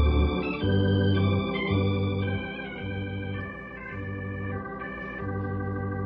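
Organ music bridge between scenes of a radio drama: held chords over a stepping bass line, dropping in level after about two seconds.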